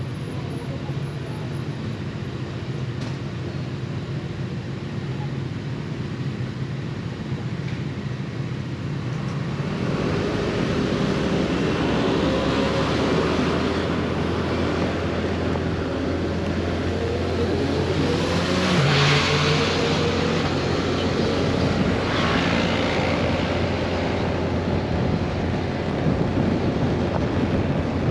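Scooter engine running with road and wind noise. About ten seconds in the scooter speeds up: the engine pitch rises and the wind noise gets louder, with a louder rush about two-thirds of the way through.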